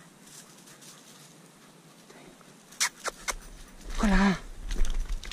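Loose limestone rubble clicking and clattering under footsteps, a cluster of sharp knocks about three seconds in and more near the end. A short shouted call to the dog comes about four seconds in, with wind rumbling on the microphone.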